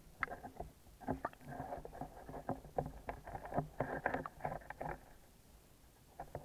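Rapid, irregular knocks and clicks on an underwater camera's housing, densest through the middle of the stretch and thinning out near the end.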